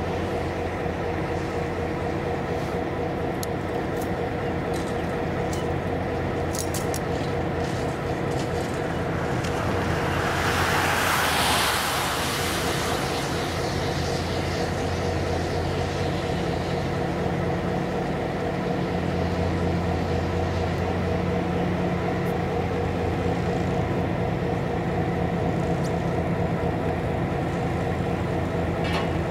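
Diesel road-switcher locomotive idling with a steady engine note. A passing road vehicle swells and fades about ten to thirteen seconds in.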